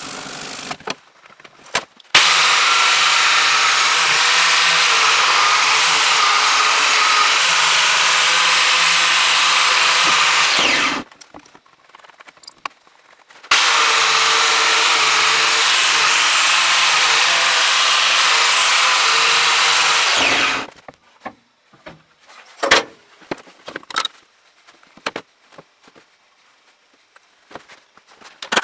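An angle grinder with an abrasive disc grinding the steel head of a hammer, in two long steady runs, the motor winding down after each. Before them come a few hand-file strokes, and after them scattered clicks and knocks of tools and the workpiece being handled.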